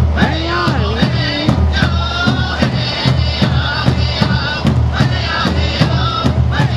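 Powwow drum and singers: a large hand drum beaten in a steady, fast, even rhythm while a group of voices sings over it.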